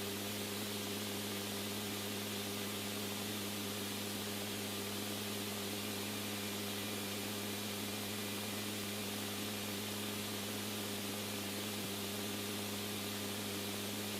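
Steady static hiss with a low electrical hum from an open radio channel between transmissions.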